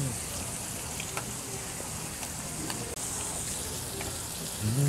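Beef intestines (gopchang) sizzling steadily on a tabletop grill pan, with a few light clicks of metal tongs and scissors as the pieces are cut and turned.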